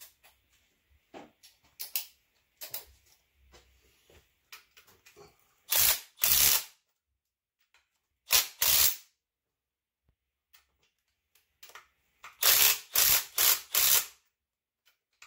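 Ratchet wrench clicking in short strokes on an engine bolt, in groups: two strokes, then two more, then a quick run of four near the end. Faint taps and clicks come in the first few seconds.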